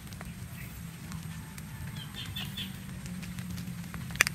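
Outdoor ambience with a steady low rumble, a quick series of short bird chirps about two seconds in, and one sharp click near the end.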